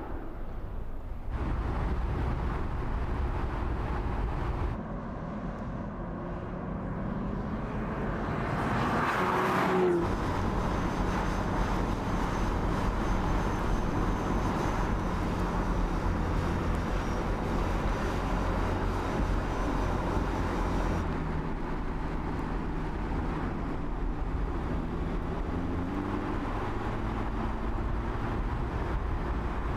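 Audi S3 cabriolet's turbocharged 2.0-litre four-cylinder engine running at road speed, with tyre and wind noise. The engine note changes abruptly a few times and rises in pitch about ten seconds in and again near the end.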